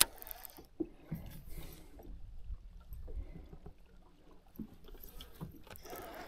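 Quiet water lapping against a fishing boat's hull, with a few small clicks and taps as a baitcasting reel and lure are handled; a sharp click right at the start.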